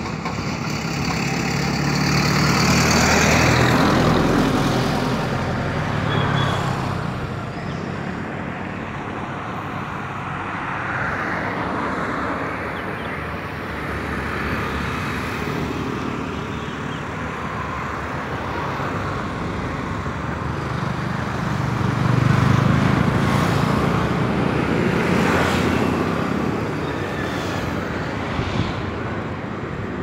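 Road traffic noise: vehicles passing, a steady rumble that swells louder twice, a few seconds in and again about two-thirds of the way through.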